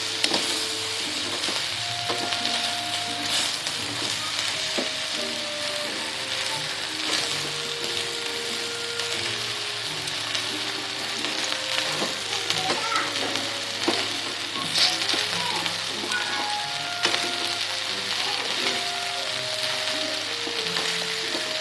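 Food sizzling steadily in a hot frying pan, with a utensil clicking against the pan now and then as it is stirred. Soft background music plays underneath.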